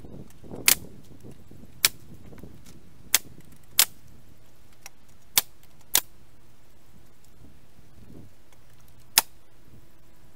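Pneumatic framing nailer driving 3½-inch nails into pallet wood: seven sharp shots at uneven intervals of about a second, with a longer pause before the last one.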